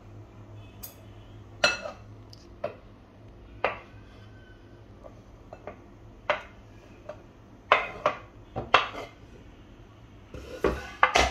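Knife tapping and scraping on a wooden cutting board as chopped chocolate pieces are pushed off into a glass bowl: about a dozen sharp, irregular clicks and knocks, with a louder clatter near the end.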